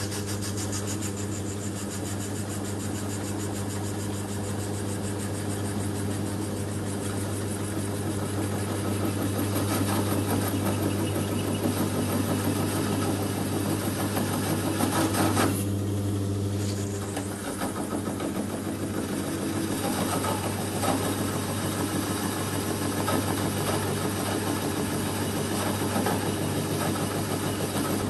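Old toolmaker's lathe running under power with its flat-belt drive, the tool turning a taper on a spinning cast aluminium cylinder: a steady machine hum under the hiss of the cut. The cutting noise thins briefly about halfway through, then picks up again.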